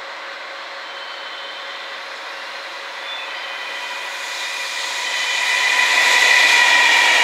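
JR Freight EF210 electric locomotive approaching and passing at the head of a container freight train. A steady high whine and rolling wheel noise grow louder from about three seconds in and peak near the end.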